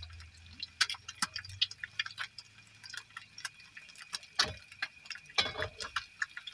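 Egg frying in oil in a nonstick pan, the oil crackling and popping in irregular little ticks, with a couple of louder handling noises past the middle.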